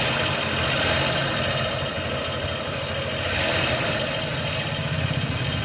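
Motorcycle engine idling with a light ticking from the valve gear: tappet noise, which the mechanic puts down to loose valve clearance, with some rocker-arm sound mixed in.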